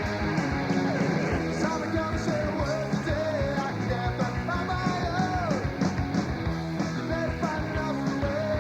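Rock music with electric guitar and drums, and a singing voice carrying the melody.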